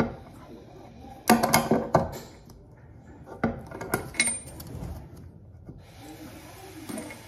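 Metal clinks and clanks of a Knipex smooth-jawed pliers wrench against the faucet's mounting nut and fittings under a sink. A quick cluster comes about a second in, then a few single sharp clinks, one with a brief high ring.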